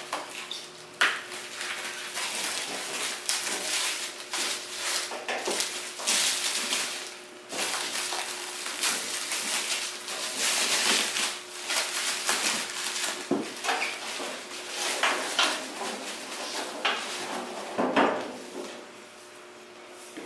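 Black plastic wrap cut with a small knife and peeled off a DTF powder-curing heater: steady crinkling and tearing with scattered knocks against the unit, the sharpest about a second in and another near the end.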